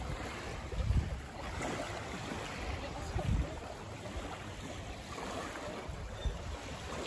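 Wind buffeting the microphone in gusty low rumbles over the wash of small waves lapping on a sandy shore.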